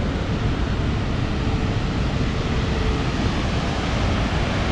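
Steady rushing roar of a large waterfall, mixed with wind on the microphone.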